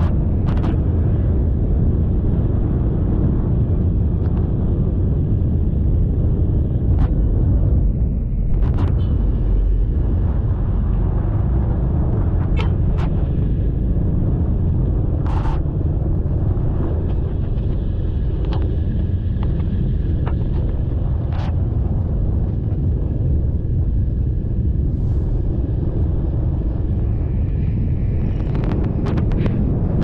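Steady low rumble of a motorcycle ride: engine and road noise at an even level, with a few faint clicks.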